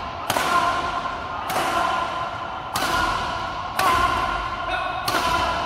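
Badminton racket smashing shuttlecocks: five sharp cracks about every 1.2 seconds, each echoing in a large sports hall.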